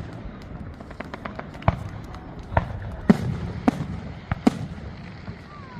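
Fireworks display: a run of sharp bangs as shells burst overhead, with fainter crackles in between. About six big reports come in the second half.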